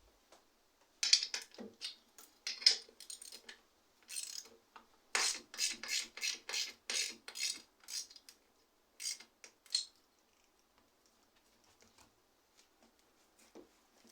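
Short metallic clinks and scraping strokes from metal parts or tools being handled, a run of about a dozen, roughly two a second in the middle, stopping about ten seconds in.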